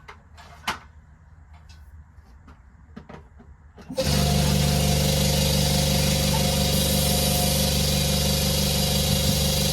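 A few clicks and taps as an air line is fitted to the tyre valve, then about four seconds in an electric tyre inflator's compressor starts suddenly and runs steadily with a loud even hum, pumping air into a flat moped tyre.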